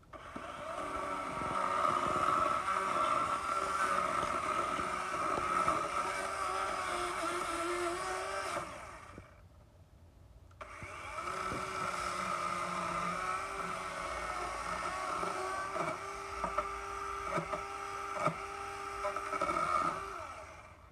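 DeWalt cordless electric chainsaw running and cutting through wooden pallet boards, a steady motor-and-chain whine. It stops for about two seconds midway, then cuts again, with several sharp knocks near the end.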